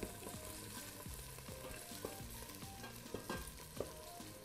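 Ginger, spring onion and garlic sizzling quietly in oil in a stainless steel stockpot, stirred with a wooden spoon that scrapes and taps lightly on the pot. The oil is being heated to draw out the fragrance of the aromatics before stock goes in.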